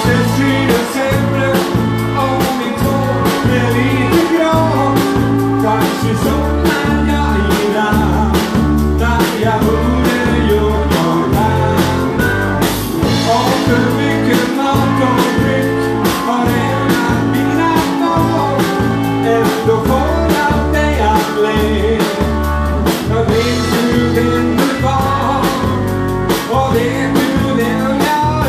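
Live rock and roll band playing at full volume: drum kit keeping a steady beat, electric guitar and a stepping bass line, with a man singing lead into a microphone from behind the drums.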